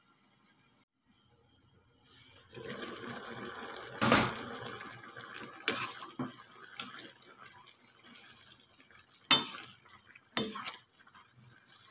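Spatula stirring string beans and chicken liver in a wok of bubbling sauce, starting about two seconds in: a wet sizzling hiss with several sharp knocks of the spatula against the pan.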